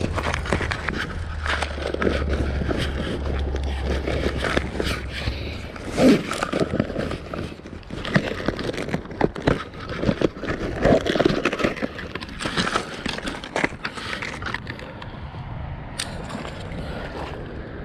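Close handling noise: irregular scrapes, clicks and rustles of an angler rummaging through gear, with a low rumble for about the first six seconds.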